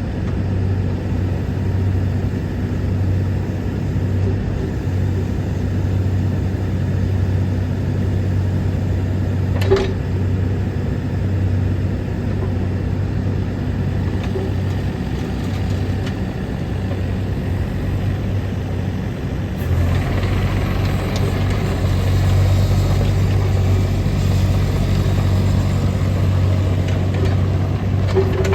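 Takeuchi TB230 mini excavator's diesel engine running steadily, with a single sharp click about ten seconds in. About twenty seconds in, the sound gets louder and busier with added higher-pitched noise, as if the engine is revved or the hydraulics are worked.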